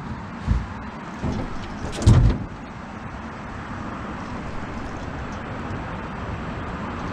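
A few knocks on a fishing boat, the loudest a heavy thump about two seconds in, over a steady noise background.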